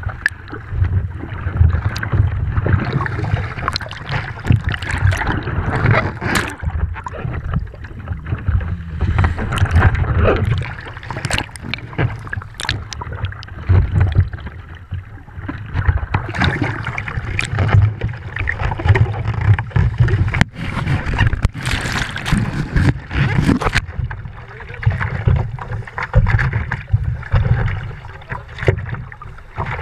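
Sea water sloshing and gurgling against a GoPro's waterproof housing as the camera bobs at the surface and dips under again, with a constant low rumble and many short splashes.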